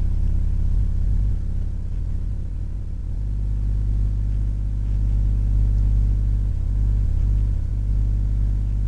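A steady low hum that runs on evenly, without distinct events.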